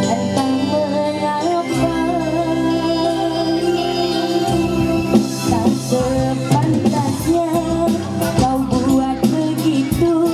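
A song: a sung melody with vibrato over sustained keyboard chords, with drum hits joining about six seconds in.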